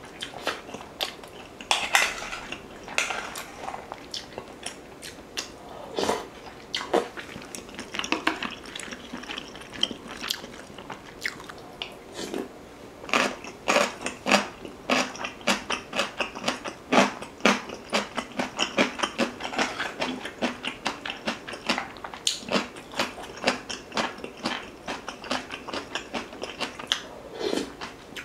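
Close-miked wet chewing and mouth sounds of a person eating rice soaked in beef rib soup, a stream of small clicks that grows busier in the second half.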